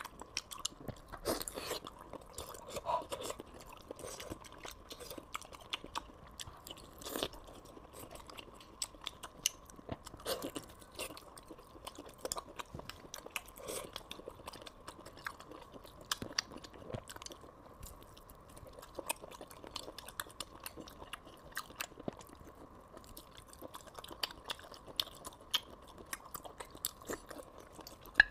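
Close-up chewing of soft, sticky braised pork with thick gelatinous skin: irregular wet mouth smacks and clicks that come and go.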